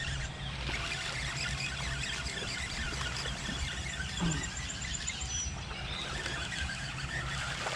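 Birds chirping high over a steady low hum, while a hooked bass is reeled in on a bent rod from the bow of a bass boat, with a run of quick, evenly spaced high chirps about five seconds in.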